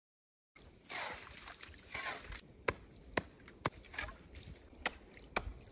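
Wooden-handled ice chisel striking creek ice to open a fishing hole: after some scuffing noise, a series of sharp strikes about half a second apart.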